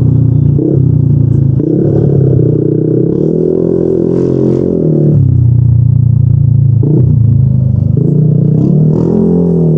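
Yamaha NMAX 155 single-cylinder four-stroke engine running through a Yoshimura RS2 aftermarket exhaust. The throttle opens twice, the note rising and then easing back, with a steady lower note in between.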